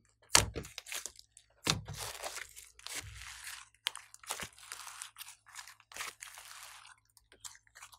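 Hands kneading and pressing a large mass of glossy clay slime: sharp clicking pops about a second apart, with crackling squelches between them as the slime is folded and squeezed.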